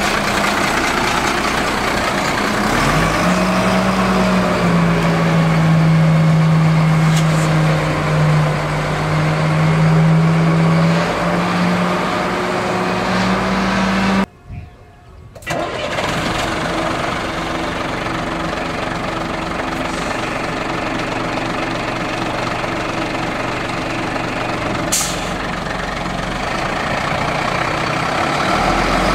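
Diesel engines of Volvo Xpeditor rear-loader garbage trucks running. For about ten seconds from about three seconds in, one engine holds a steady raised pitch, then the sound drops out briefly about halfway through and resumes as a lower, steady engine note.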